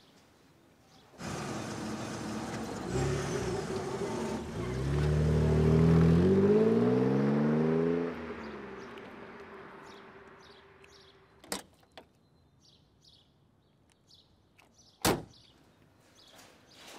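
A car engine revving, its pitch rising as the car pulls away, then fading over several seconds. Later a couple of light clicks and one sharp bang about 15 seconds in.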